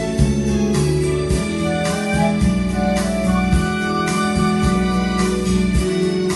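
Instrumental music with a steady beat and held bass and chord notes, with no singing: the instrumental break of a romantic Spanish-language song.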